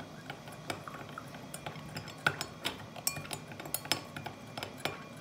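Metal spoon stirring salt into water in a stemmed glass, clinking against the glass in irregular taps, several a second, some with a brief glassy ring.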